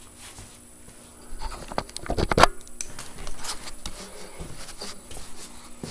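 Handling noise from the camera being picked up and carried: scratching and rubbing with a cluster of sharp knocks, loudest about two seconds in, then lighter taps and rustling.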